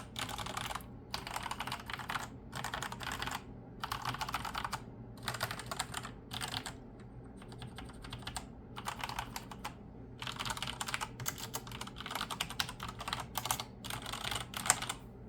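Typing on a vintage 122-key mechanical keyboard with Cherry MX Black and Jet Axis White linear switches: runs of rapid keystrokes clattering, broken by short pauses, with a softer stretch about halfway through.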